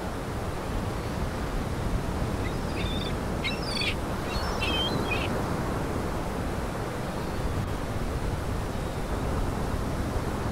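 Steady rush of surf from choppy lake water, with a bird calling a few times in quick short notes about two and a half to five seconds in.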